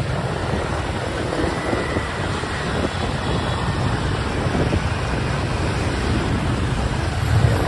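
Wind rushing steadily over the microphone of a moving motorbike, over the running of the many scooter engines around it in city traffic.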